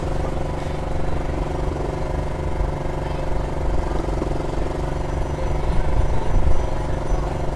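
Small portable petrol generator running at a steady speed with an even drone.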